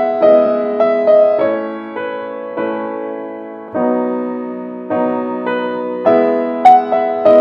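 Background piano music: gentle notes and chords struck every half second to a second, each left to fade.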